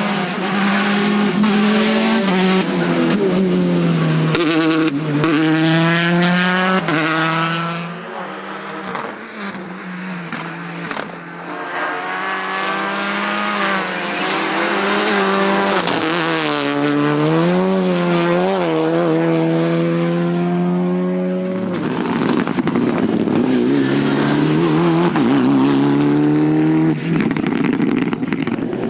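Rally cars at speed on a special stage, engines revving hard and climbing through repeated upshifts as they pass one after another. There is a quieter stretch a third of the way in before the next car arrives.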